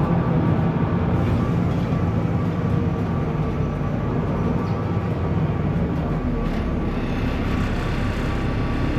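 Cabin noise of a BMC Procity city bus under way: its Cummins ISB turbo-diesel engine running as a steady low drone, with road and tyre noise. The hiss grows a little near the end.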